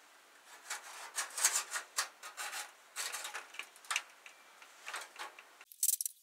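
Thin sheet-metal patch piece scraping and tapping against the rusty steel speaker tray as it is fitted by hand: an irregular run of short scrapes and light clicks.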